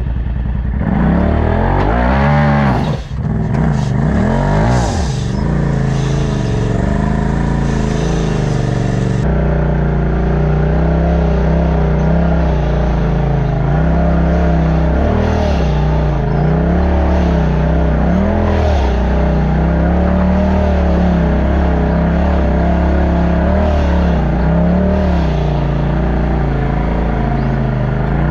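Side-by-side off-road buggy engine revving hard, its pitch sweeping up and down in the first few seconds. After an abrupt change about nine seconds in, it runs steadily under load with small rises and dips in pitch.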